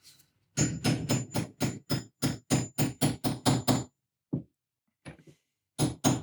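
Quick hammer taps, about four a second, on a part of a Saginaw power steering gear being reassembled, with a faint metallic ring. The taps come in two runs with a short pause between them.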